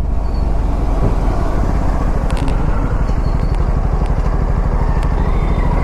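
Aprilia RS457's parallel-twin engine running steadily under way, with a fast even pulse of the firing strokes.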